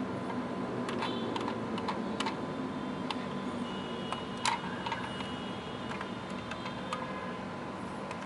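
Light, irregular clicks and taps of fingers handling a 1:24 Jada diecast Nissan Skyline GT-R R34 model, the loudest click about halfway through, over a steady hiss and a thin steady tone.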